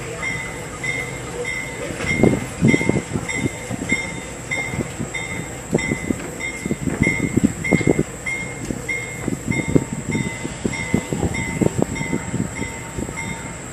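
A railroad locomotive near the station, with a bell ringing at an even pace of about three strokes every two seconds. Uneven low rumbles and knocks from the train come and go beneath it.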